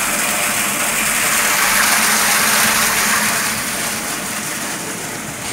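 A stream of effluent gushing from a pipe into a treatment tank and splashing into the foaming water below: a steady rushing, which eases off a little about four seconds in.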